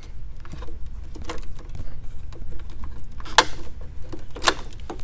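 Hands working a wiring-harness connector loose: a few sharp clicks and knocks of plastic and metal parts, the two loudest near the end, over a low steady hum.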